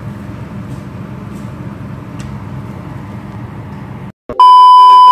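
A steady low hum and hiss of a pan of sauce simmering on the stove, then a short dropout and a loud, steady electronic beep at one pitch lasting about a second near the end.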